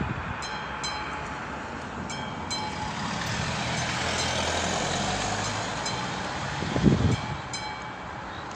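A level-crossing warning bell strikes again and again in quick pairs of ringing strokes. In the middle a passing train's rumble and rush swells up and masks the bell. There is one loud low thump about seven seconds in.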